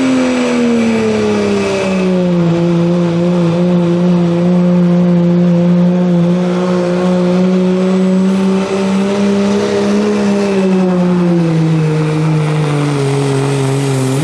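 Second-generation Dodge Ram's turbocharged 5.9 Cummins diesel straight-six held at full throttle pulling a weight-transfer sled, with a steady high turbo whistle over the engine. The engine pitch sags lower about two seconds in as the sled bears down, holds, then drops again near the end as the truck bogs under the load.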